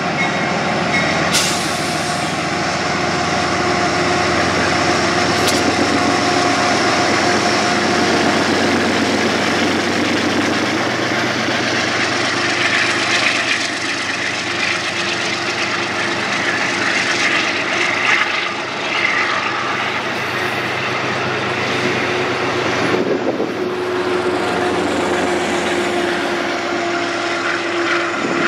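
Amtrak passenger train pulling away, with its GE Genesis P32AC-DM diesel locomotives at front and rear running under power and the cars' steel wheels rolling over the rails: a steady, loud rumble with a held engine drone.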